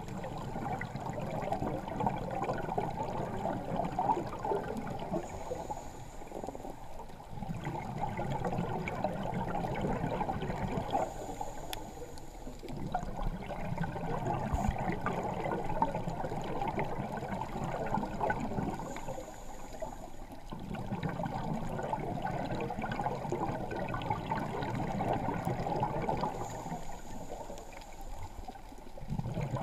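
Underwater sound of a scuba diver breathing through a regulator, heard through the camera housing: bubbly, gurgling exhalations come in surges about every seven seconds, each ending with a short high hiss and a brief lull.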